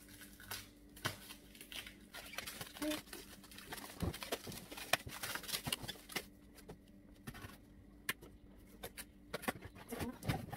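Scissors snipping and clear plastic wrap crinkling and tearing as it is cut off a cardboard box, in irregular clicks and rustles. Near the end a cardboard flap scrapes as it is pulled open.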